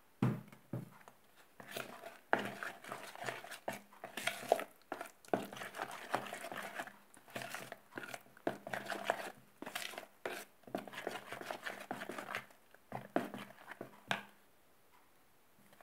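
A metal spoon stirring and mixing thick hummus in a bowl, with irregular scraping and clinking against the bowl's sides. It stops about a second before the end.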